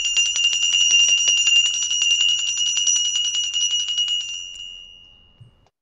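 Altar bells rung rapidly at the elevation of the chalice, signalling the consecration of the wine. The bright ringing stops about four and a half seconds in and dies away over the next second.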